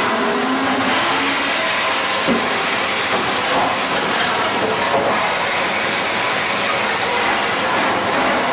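Suction gold dredge running: a steady drone from the dredge's engine and pump, with water and gravel rushing out of the suction hose into the sluice box.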